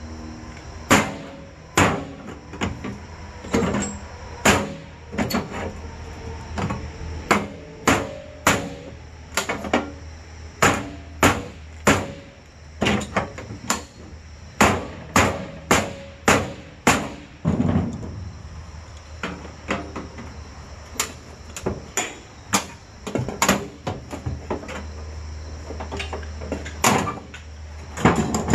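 A hatchet striking along a piece of scrap on the bench: a run of sharp knocks, about one or two a second, thinning out in the second half, over a steady low hum.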